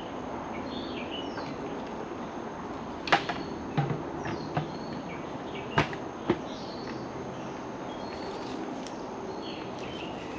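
A handful of sharp knocks and clatters, about three to six and a half seconds in, from a plastic bait bucket being handled and emptied onto the ground. Birds chirp over a steady forest background throughout.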